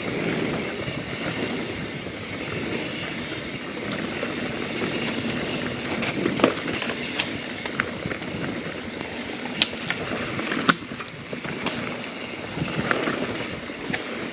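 YT Jeffsy 27 mountain bike rolling along a rocky dirt trail: a steady rumble of tyres and rattle with wind on the microphone, and a few sharp clacks from the bike hitting rocks.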